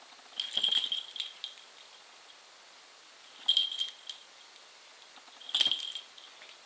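Small metal jingle from a toy poodle's collar, three short clinking bursts as the dog shakes and worries a cotton work glove in its mouth.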